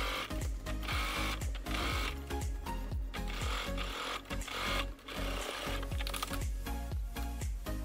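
Sewing machine stitching, over background music with a steady beat.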